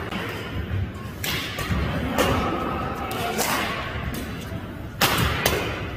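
Badminton rally: rackets hitting a shuttlecock back and forth, about five sharp cracks roughly a second apart, the loudest near the end.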